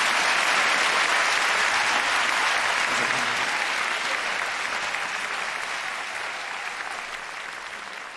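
Large theatre audience applauding, a dense steady clapping that slowly dies away over the second half.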